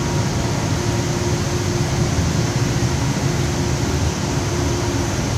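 Maple sap evaporator running at the boil: a steady, loud machinery noise with a low hum and a faint steady tone that do not change.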